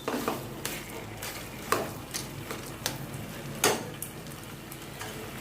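A spatula scraping and knocking against a kadai as thick palm pulp with coconut and sugar is stirred, in irregular strokes with a faint sizzle, while the sugar melts and its water cooks off.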